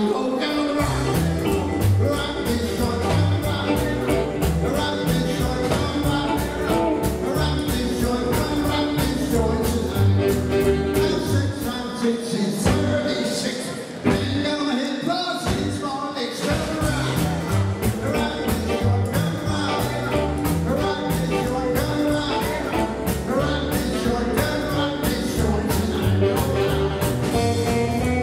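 Live rock 'n' roll band playing with a singer: electric guitars, saxophone and drums. The low end of the band drops out for a few seconds around the middle before the full beat comes back.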